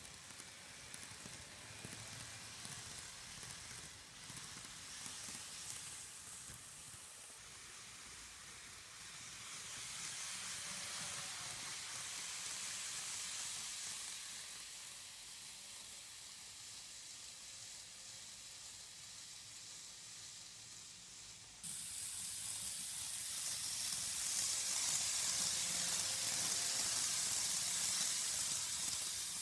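N gauge model train running over sectional track: a steady high-pitched hiss of the small wheels and motor. It grows louder as the train passes close, with a sudden jump in level about two-thirds in.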